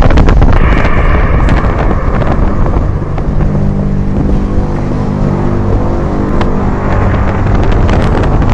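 Wind buffeting the microphone, then from about three seconds in a steady low droning hum of several tones held together: the kind of unexplained sound presented as a 'strange sound in the sky'.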